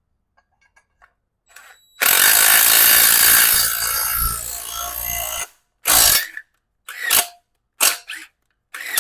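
Power drill running a bolt into freshly re-threaded bolt holes: one long run of about three and a half seconds, then a series of short trigger bursts.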